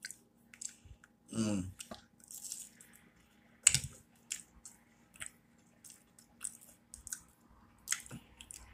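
Close-up chewing of a grilled cheese sandwich with pepperoni: wet mouth clicks and smacks, with a short vocal sound about a second and a half in.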